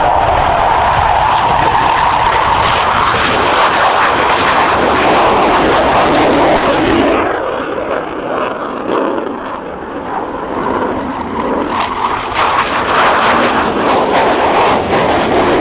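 Panavia Tornado's twin RB199 turbofan engines in a low-level pass, a loud, steady jet noise that eases for a few seconds in the middle and then builds again.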